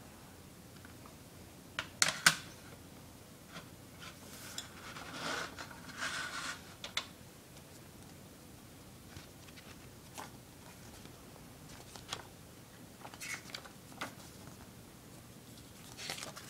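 Handling a plastic CD jewel case and its paper booklet: a few sharp plastic clicks about two seconds in, then a few seconds of sliding and rustling as the booklet comes out. Scattered small taps follow, and the pages rustle as they are leafed through near the end.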